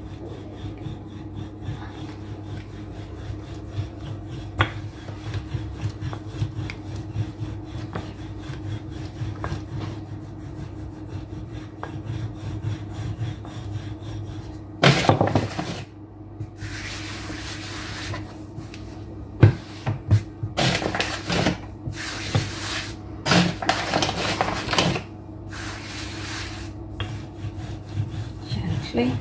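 Wooden rolling pin rolling over a stack of thin samosa pastry sheets on a granite counter: a soft rumbling rub with light knocks. About halfway through come louder scraping rubs in several bursts of a second or two each.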